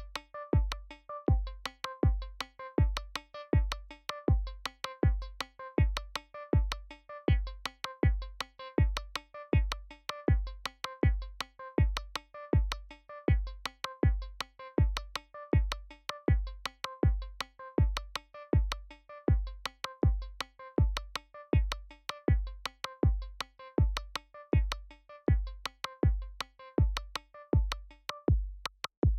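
Electronic music: a steady kick drum about twice a second under short, repeating synthesizer notes.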